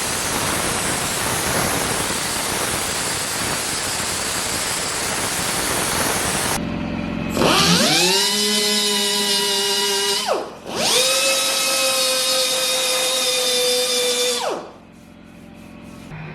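A power tool working on the Jeep's body: a steady rushing noise for about six and a half seconds, then a motor whines up to speed twice, runs steadily for about three seconds each time, and winds down.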